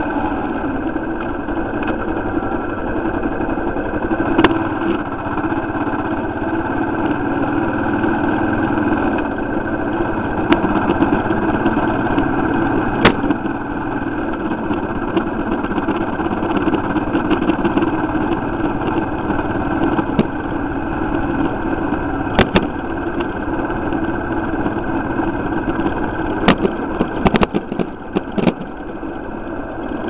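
Motorcycle engine running steadily at low speed, heard from on the moving bike. A few sharp knocks cut through, with a quick cluster of clicks near the end.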